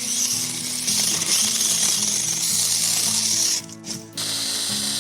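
Small battery-powered electric mini chainsaw running with a steady high whir, cut off for about half a second after three and a half seconds, then running again.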